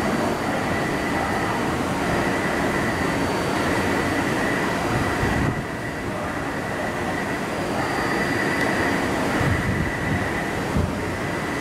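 Taipei Metro C381 electric train approaching slowly over points and curved elevated track, its wheels and running gear rumbling steadily, with a thin high whine that comes and goes. A single sharp knock sounds near the end.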